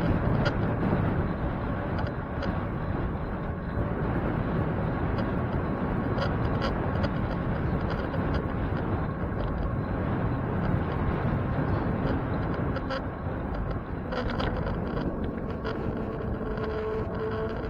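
Steady wind and road noise from a bicycle being ridden, with scattered light clicks and rattles.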